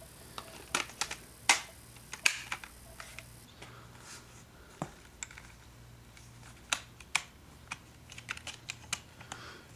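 Light, irregular plastic clicks and taps from a Wacom Bamboo pen tablet's removable back cover being handled and slid back into place on the tablet's plastic underside.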